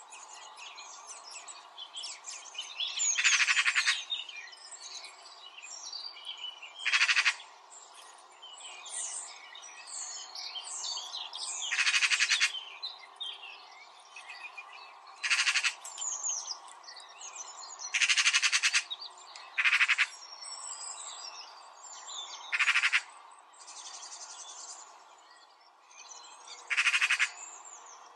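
Nature ambience: many birds chirping, with a loud animal call made of rapid pulses repeating every three to five seconds.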